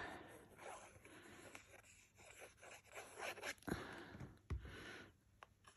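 Paper being handled on a craft table: a small card rustling and scraping faintly, with a couple of soft knocks a little past halfway.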